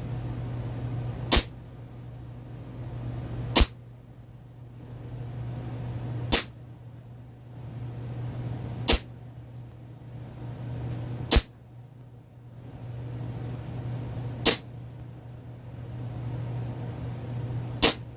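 Steyr L9-A2 CO2 blowback airsoft pistol firing single shots, seven sharp reports spaced about two and a half to three seconds apart, over a steady low hum.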